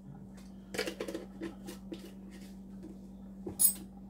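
Light clicks and clinks of kitchen utensils and containers being handled, with a sharper clack near the end, over a steady low hum.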